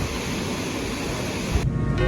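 Steady outdoor rushing noise, like wind and surf on the microphone, that cuts off abruptly about one and a half seconds in, leaving a low rumble.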